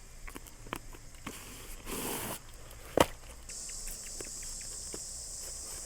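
Scattered light clicks and knocks with a brief rustle, and one sharp knock about three seconds in. About halfway through, a steady high-pitched insect trill, like crickets, starts up and carries on.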